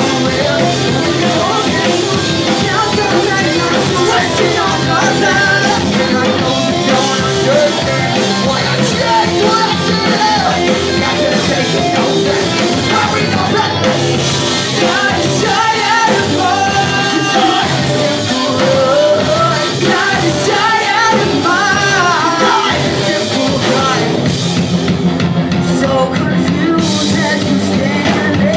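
A pop-punk band playing live: distorted electric guitars, bass and drum kit under a lead singer, loud and continuous.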